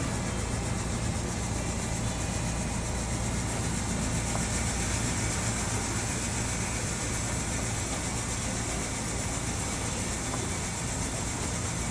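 Steady outdoor stadium ambience: an even low hum and hiss with no distinct events.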